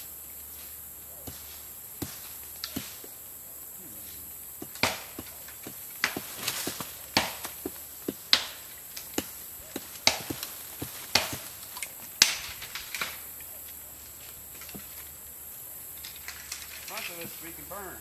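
A run of sharp knocks, about one a second for several seconds midway, over a steady high-pitched drone of insects.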